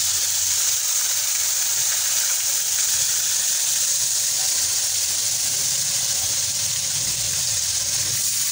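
Freshwater eel frying in hot oil: a steady sizzle.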